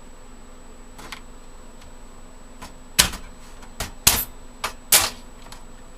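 A screwdriver striking the stamped sheet-metal I/O shield plate of a PC case to knock it out: about half a dozen sharp metallic knocks, the loudest about three, four and five seconds in.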